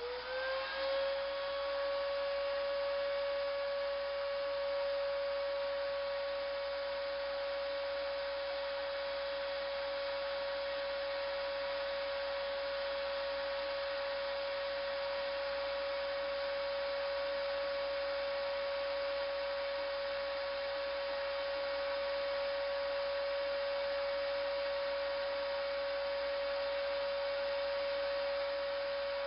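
Wet/dry shop vacuum running at full speed with a steady whine, its pitch rising as the motor spins up and settling within the first second. It is drawing the poured ice water down through a stack of mesh filter bowls.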